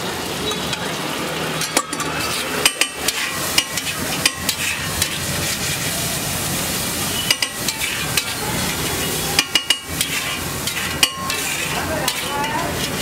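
Chopped egg and onion frying with a steady sizzle on a large flat griddle, while a long metal spatula stirs and chops it, its blade clacking sharply against the griddle at irregular moments.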